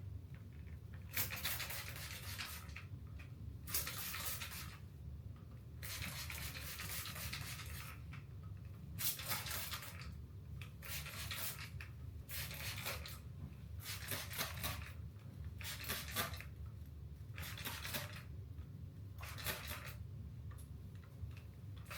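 Spray bottle of water mixed with oils misting hair in about a dozen short hissing sprays, a second or two apart, over a low steady hum.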